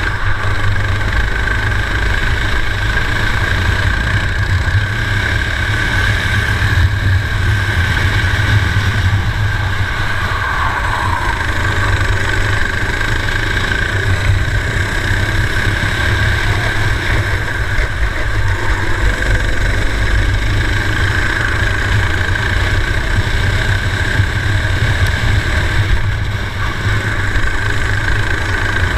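Four-stroke racing kart engine running steadily under racing throttle, heard from on board the kart.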